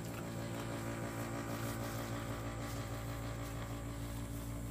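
A steady, low motor hum that does not change.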